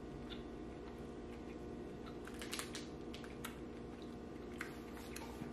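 Faint scattered clicks and light rustles over a steady low room hum.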